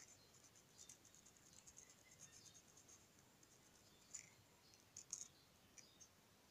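Near silence, with faint scrapes and soft clicks of a small carving knife cutting and scooping out watermelon flesh; a few slightly sharper ticks about four and five seconds in.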